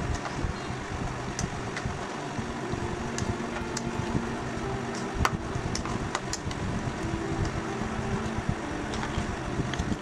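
Steady household background noise with a low hum, broken by scattered light clicks and clinks, typical of utensils on steel dishes while eating.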